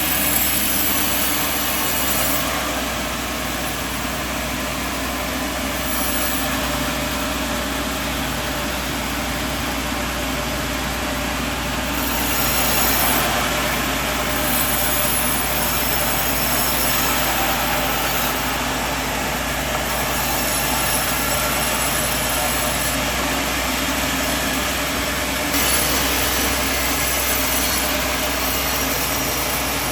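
Band sawmill running steadily, a constant low hum with a high whine above it that swells and fades a few times.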